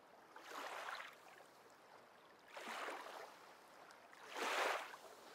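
A paddle stroking through calm water, three swishing strokes about two seconds apart, the last one the loudest.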